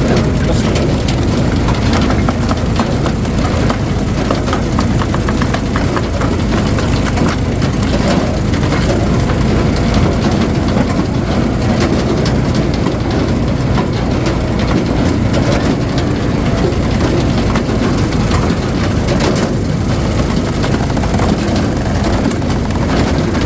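Engine of a firewood splitter running steadily, with many small clicks and knocks over the engine noise as wood is split.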